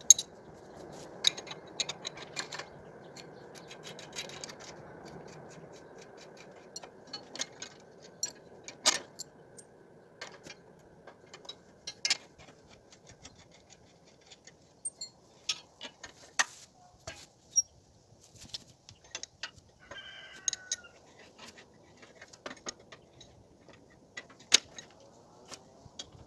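Scattered metal clinks and knocks of steel implements being handled as a furrow opener is unhitched from a walk-behind tractor and a steel frame harrow is fitted to its hitch. A faint low hum underneath fades out about ten seconds in.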